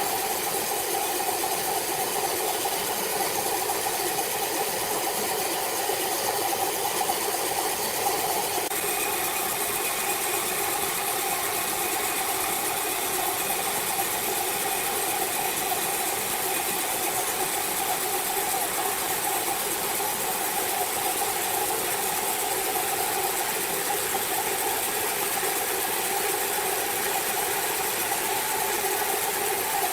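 A machine running steadily: an even engine-like drone with a rattling hiss over it, the hiss shifting about nine seconds in.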